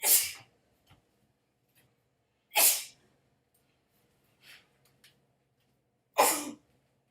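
A woman sneezing three times in a row, each a short loud sneeze about three seconds apart, in a sneezing fit.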